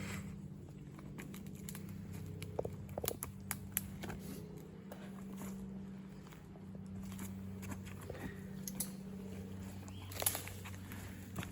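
Scattered small crunches, clicks and rustles from a person handling plants while foraging for berries, over a steady low hum.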